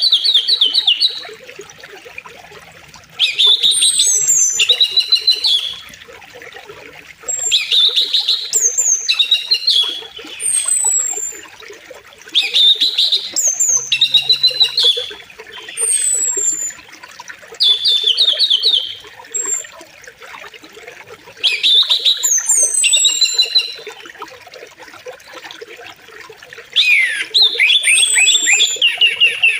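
A songbird singing short, repeated whistled phrases with quick trills every few seconds, over the steady rush of flowing river water.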